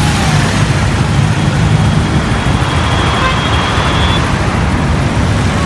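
Loud, steady road traffic noise from a busy road, with a faint high tone for about a second in the middle.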